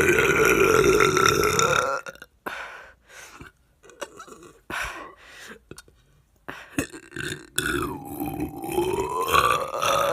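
A person belching loudly and at length. One long burp runs into the first two seconds, short quieter sounds follow, and a second long burp comes about eight seconds in, dipping and then rising in pitch.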